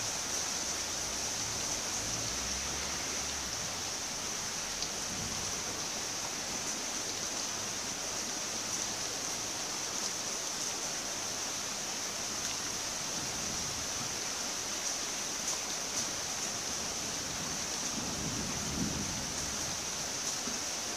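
Steady rain falling in a continuous hiss, with scattered faint drop ticks and a brief low rumble near the end.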